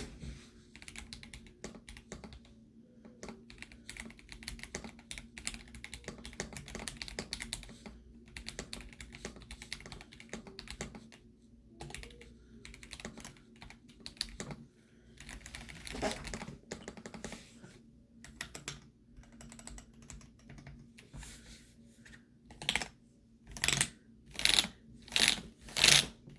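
Typing on a Keychron V1 Max mechanical keyboard with Keychron Jupiter Red linear switches: a stream of quick keystrokes. Near the end come about five louder, separate key strikes.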